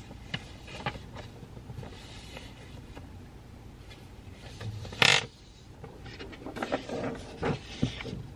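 Small handling sounds at a study desk: scattered taps and scratches of pencil and paper, with one louder, brief rustle about five seconds in and a run of taps near the end.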